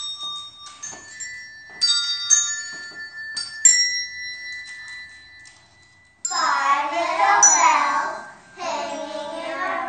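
Several struck bell-like chime tones at different pitches ring out one after another and fade. About six seconds in, children's voices start.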